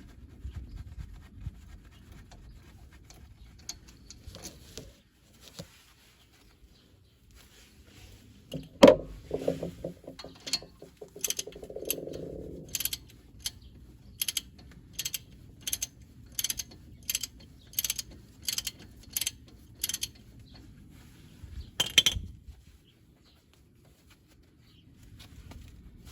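Socket ratchet backing out brake caliper bolts: a run of fast ratchet clicking, then a steady series of single clicks about two-thirds of a second apart. A loud metallic clatter comes near the end.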